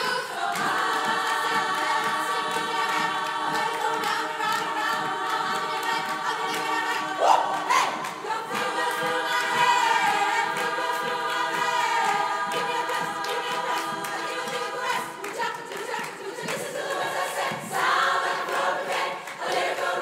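Large women's choir singing sustained chords in several parts over a quick, steady rhythmic pulse, with a brief rising vocal swoop about seven seconds in.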